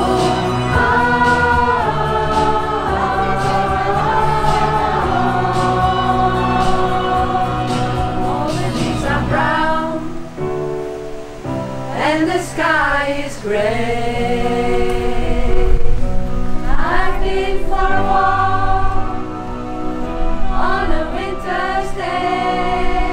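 A choir singing in several-part harmony, holding chords, with sliding, swooping notes in the middle and near the end.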